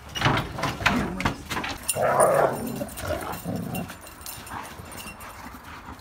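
A German shepherd puppy and a pitbull vocalizing as they wrestle in play, loudest about two seconds in and quieter after about four seconds, with a few sharp knocks in the first second or so.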